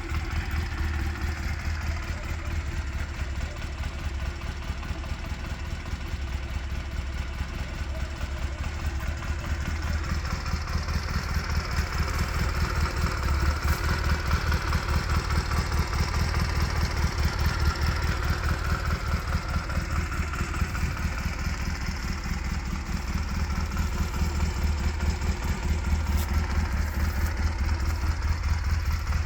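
A 1997 Honda Rebel CA125's air-cooled 124 cc parallel-twin engine running near idle through its stock exhaust, with a steady rapid beat. It gets a little louder in the middle, then settles back.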